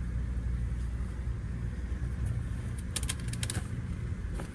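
Steady low rumble heard inside a passenger train carriage, with a quick run of sharp clicks about three seconds in.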